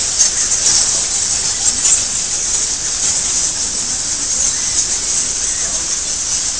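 A large roosting colony of bats in a cave, many squeaking at once in a dense, steady, high-pitched chatter.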